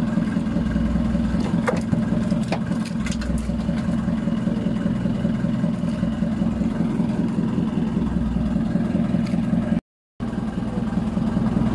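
Small fishing boat's engine running steadily at idle, with a few light clicks a couple of seconds in and a brief break in the sound near the end.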